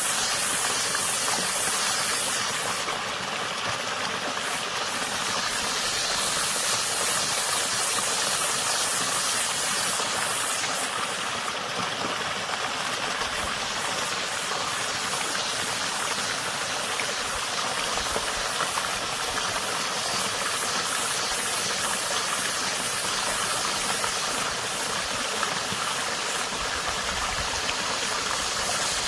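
Water running steadily over stones in a small stream, a continuous rushing and splashing.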